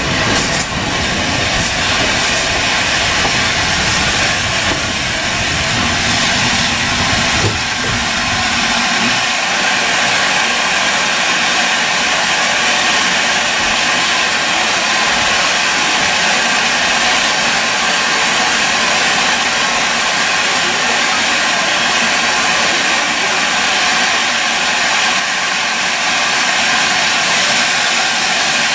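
Steam train running with a low rumble that dies away about nine seconds in, leaving a steady loud hiss of steam from the locomotive.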